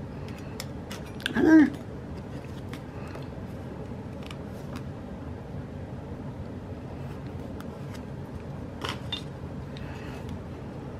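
Faint ticks and rustles of planner stickers being handled and pressed onto paper, over a steady low room hum, with a short vocal sound about a second and a half in.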